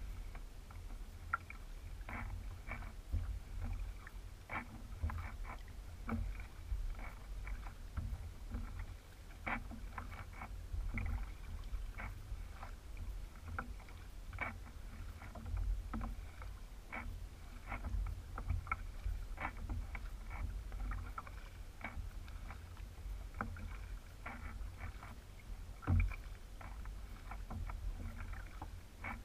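Hobie Revolution 16 kayak moving over flat water: a low steady rumble with many small, irregular ticks and drips from the hull and paddle, and one louder knock near the end.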